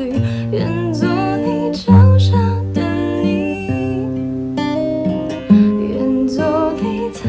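A song: acoustic guitar accompaniment with a voice singing a slow melody in Chinese.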